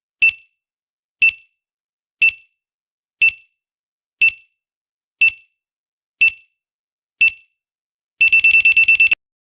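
Countdown timer sound effect: short, high electronic beeps about once a second, then a fast burst of about ten beeps near the end, like an alarm clock, as the time runs out.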